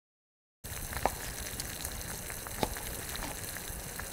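Food sizzling in hot oil: a steady hiss with occasional sharp pops, starting about half a second in after a moment of silence.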